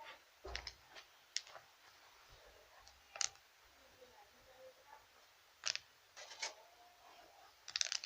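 Scattered short crinkles and clicks at irregular intervals, a cluster of them near the end: chocolate packaging being handled.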